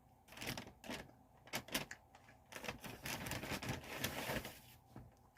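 Close-up eating noises from a bacon cheeseburger: crackly, crunchy clicks and rustling, densest in the second half.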